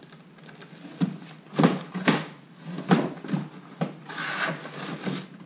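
A cardboard shoebox being handled and opened inside a shipping carton: a series of sharp knocks and scrapes of cardboard, then a rustle a little past four seconds in.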